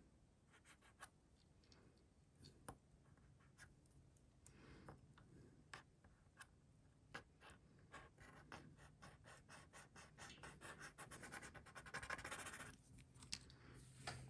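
A small jewelry piece scratched against a gold-testing stone to lay down a streak for an acid test. There are scattered light clicks and taps, then a fast run of scratching strokes in the second half that stops shortly before the end.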